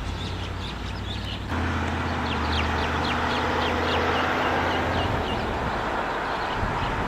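A bird calling a quick run of short, high chirps, several a second, over a steady low rumble that turns louder about one and a half seconds in.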